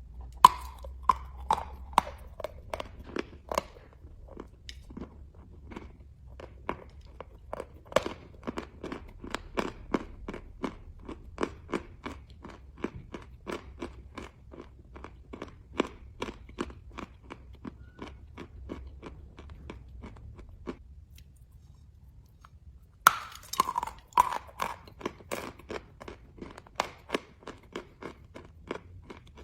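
A person biting off chalk with a sharp crunch and chewing it in a steady run of short crunches. After a brief pause there is a second loud bite near the end, and the chewing starts again.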